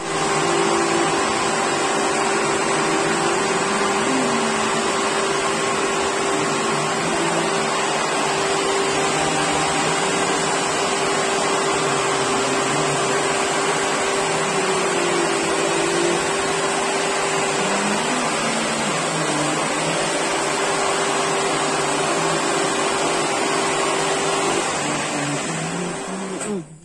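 Electric motor-driven centrifugal water pumps running, a loud steady hum and whir with one held tone, which falls away sharply near the end.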